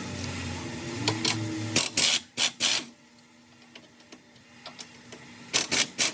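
Ratchet wrench loosening the two suspension bolts that hold the hub so the CV axle can come out, in short rattling strokes: a quick run of four or five about two seconds in, and more near the end.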